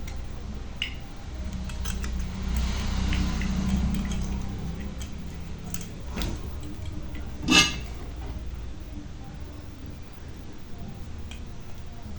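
Small metal tools clicking and tapping while relays are being replaced on a microwave control board, over a low hum. About seven and a half seconds in comes one loud, sharp snap.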